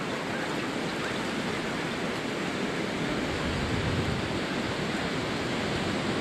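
Ocean surf breaking on a beach: a steady rushing noise.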